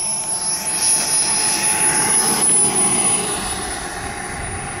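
Small turbine engine of a Skymaster Viper 2M model jet running at low throttle on landing. A high steady whine sinks slightly in pitch, with a rushing sound that swells over the first few seconds and then fades.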